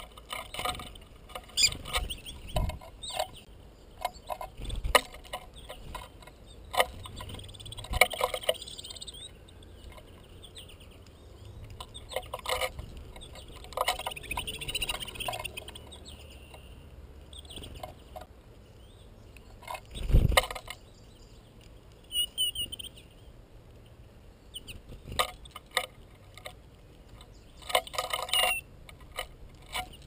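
Finches at a tube seed feeder: irregular clicks and knocks from the birds landing on and pecking at the feeder and its tray, with one heavier thump about two-thirds through. Brief high twittering finch calls come and go, most around the middle and near the end.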